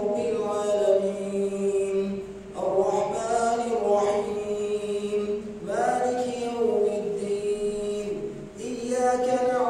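An imam reciting the Quran aloud in melodic tajweed chant during prayer. One male voice holds long, sustained phrases, pausing briefly for breath about two and a half, six and nine seconds in.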